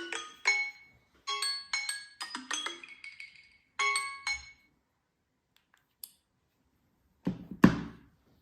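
Smartphone alarm or timer tone: a chiming melody of short, bell-like mallet notes in quick groups that stops about four and a half seconds in. Near the end come two thumps, the second louder.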